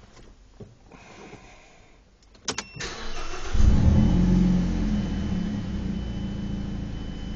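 A Mazda 3 fitted with an aftermarket cat-back exhaust and a K&N intake filter is started, heard from inside the cabin. A few clicks and a brief crank come first; the engine catches about three and a half seconds in with a loud flare of revs, then settles to a steady idle.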